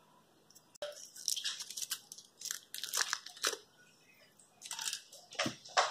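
A block of cheese being grated on a small handheld metal grater over a masala papad: clusters of short, crisp rasping strokes.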